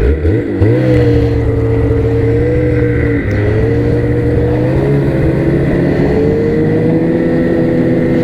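Snowmobile engine running at a steady trail-cruising speed, with brief dips in engine speed near the start and about three seconds in.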